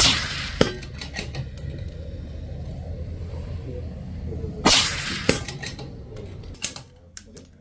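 Two rifle shots about four and a half seconds apart, each followed roughly half a second later by a second sharp crack.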